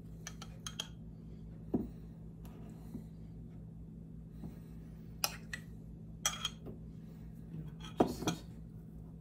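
Metal spoon clinking and scraping against a glass measuring cup as warm lingonberry preserves are scooped out: several sharp, separate clinks, the loudest near the end.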